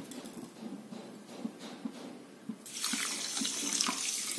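Water poured from a glass onto a heap of sugar in a nonstick pan, splashing for the last second and a half or so, after a quieter first half.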